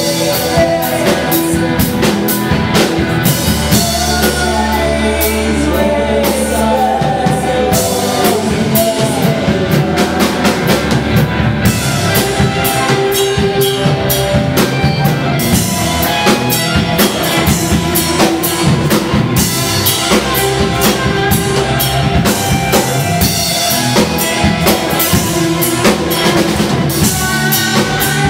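Live rock band playing: drum kit with regular beats under electric guitars, with a woman's singing in places, heard from among the audience in a club.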